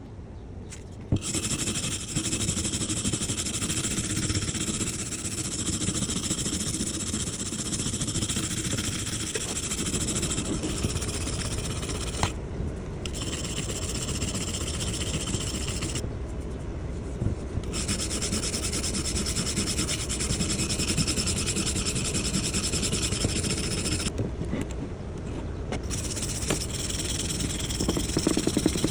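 Steel axe head being worked with an abrasive: a steady rasping grind that stops briefly three times.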